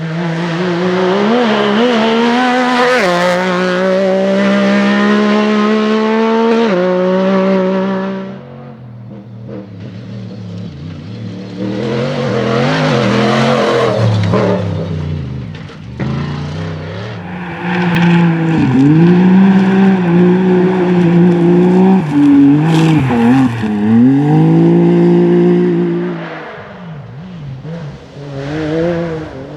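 Rally car engines running flat out past the microphone: the first car pulls hard, its pitch climbing and then dropping at each of two upshifts. After a quieter spell and a brief rush of passing noise, another engine comes in loud, its pitch dipping and rising with quick lifts and throttle blips before fading near the end.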